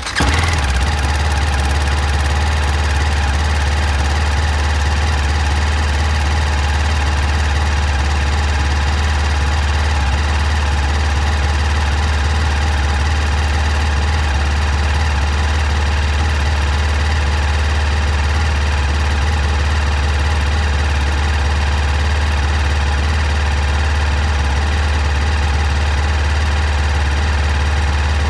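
BMW G310R's 313 cc single-cylinder engine idling steadily just after a cold start, held at the raised idle of the day's first start.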